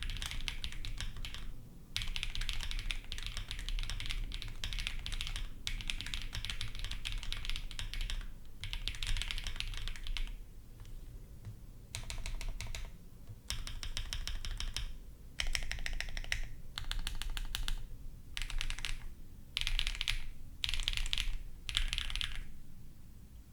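Typing on a Choice65 gasket-mount aluminium mechanical keyboard with pre-lubed Z1 linear switches, a polycarbonate plate and MW Coloradas keycaps. The typing is fast and continuous for about ten seconds, then comes in short bursts with brief pauses.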